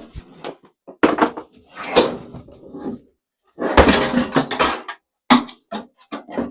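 Microwave oven being handled and taken apart by hand: a series of clattering knocks and scrapes of its metal casing and loose parts, with the loudest clatter about four seconds in.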